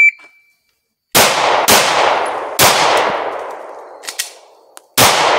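A shot timer's start beep ends right at the start, then a handgun fires three shots, each ringing out for about a second. About four seconds in come a few light clicks as a dummy round fails to fire and the pistol is cleared, and a fourth shot follows near the end.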